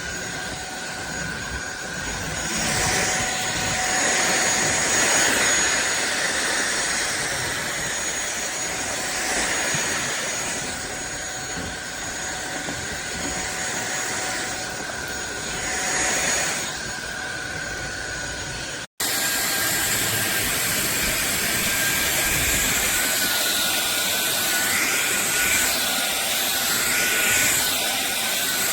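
Cordless stick vacuum cleaner running, a steady high motor whine with rushing air that swells louder a few times. About two-thirds through it cuts out for an instant, then the whine resumes and sags slightly in pitch.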